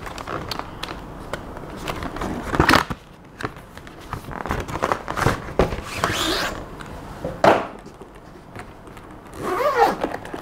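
A cardboard packaging box being handled and a hard-shell camera gimbal case slid out of it: rustling and scraping of cardboard with several sharp knocks, the case set down on a metal table near the end.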